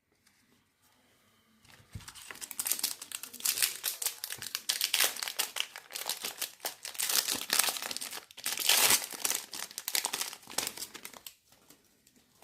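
A baseball card pack's wrapper crinkling and tearing as the pack is opened by hand: a dense crackle that starts about two seconds in and stops shortly before the end.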